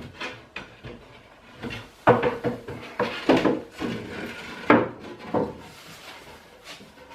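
Wooden piece of furniture being pushed and shuffled into place under a wooden workbench frame: a run of irregular wooden knocks and scrapes, loudest from about two to five seconds in.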